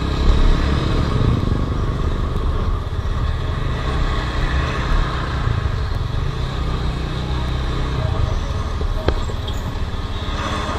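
Motorcycle riding in traffic, heard from the rider's seat: a steady, heavy wind rumble on the microphone with engine and road noise beneath it.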